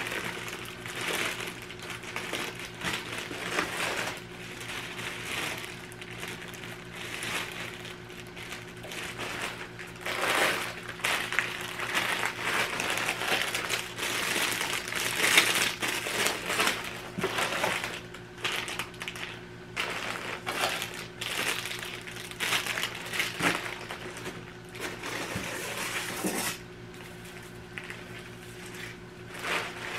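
Packaging being unwrapped and handled: irregular crinkling and rustling with small clicks, busiest in the middle, over a faint steady hum.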